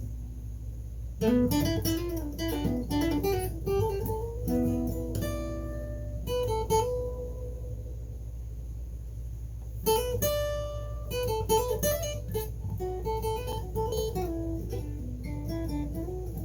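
Guitar playing a lead break of single-note phrases with bent notes, one phrase starting about a second in and another about ten seconds in, over a steady low hum.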